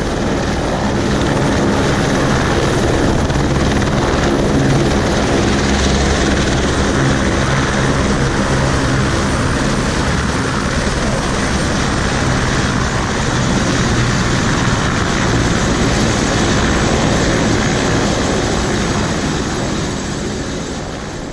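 Helicopter in flight, heard from inside the cabin: a steady, loud engine and rotor drone that holds unchanged throughout.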